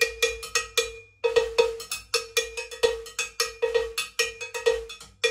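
Drum-kit cowbell struck rapidly with the side of a drumstick rather than the tip, giving a louder, higher-pitched clank. The clanks come about five a second, with a brief pause about a second in.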